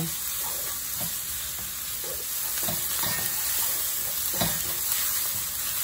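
Sliced shallots and garlic sizzling steadily in hot oil in a stainless-steel wok, with a wooden spatula stirring them and now and then scraping or knocking against the pan.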